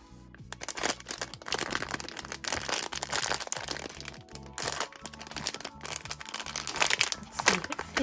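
Plastic blind bag crinkling as it is torn open and a vinyl figure is pulled out of it, over soft background music.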